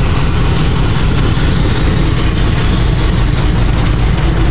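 A Camaro's swapped-in Corvette V8 idling, loud and steady, with most of its sound low and deep.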